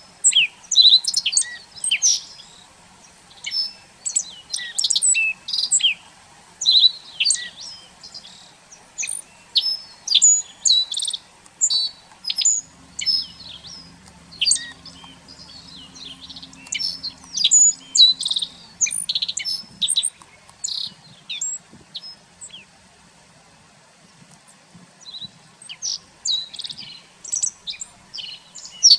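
Small songbirds calling: many short, high chirps, several a second, with a lull a little past two-thirds through. A faint low hum runs under them for a few seconds midway.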